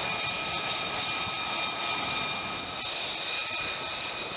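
F-35C jet engine running with a steady whine made of several high tones over a rushing hiss; the hiss grows brighter about three seconds in.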